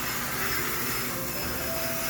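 High-pressure steam cleaner blasting steam with a steady hiss as it sterilises a washing machine, with background music playing over it.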